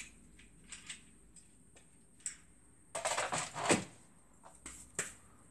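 Light clicks and taps of small parts and tools being handled on a workbench. About three seconds in comes a louder second of rustling and scraping, as of things being shifted or rummaged through, followed by a couple more clicks.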